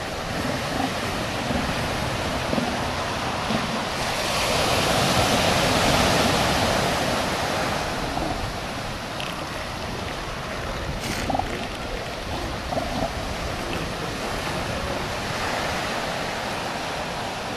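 Surf breaking and washing onto a beach, with wind on the microphone; the surf swells loudest about five seconds in.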